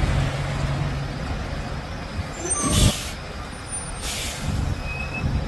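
Diesel semi-truck engine rumbling low as the tractor-trailer creeps through a tight turn, with two short, sharp hisses of air from its air brakes, about three and four seconds in.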